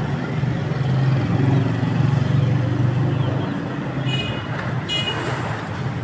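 A low, steady engine drone that swells and fades over the first few seconds, with two short high-pitched chirps about four and five seconds in.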